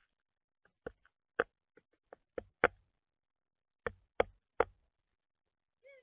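Northern flicker pecking at seed in a platform bird feeder, its bill striking the tray in sharp taps: a quick run of about six over the first couple of seconds, then three more after a short pause.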